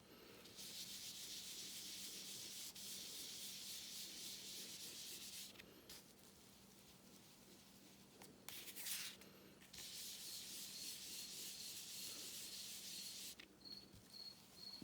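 Blending brush rubbed over the edge of a cardstock panel, inking it: quiet, scratchy brushing in two long spells of about five and four seconds, with a short stroke in between.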